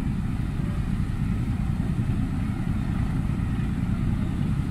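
Engine idling: a low, steady rumble.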